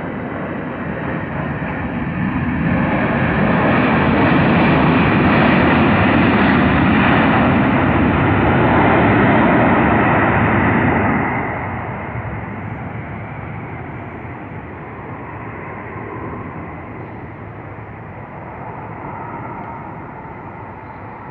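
Jet aircraft passing by: engine noise with a steady high whine swells to a loud peak, holds for several seconds, then drops off sharply about halfway through and fades as the plane moves away.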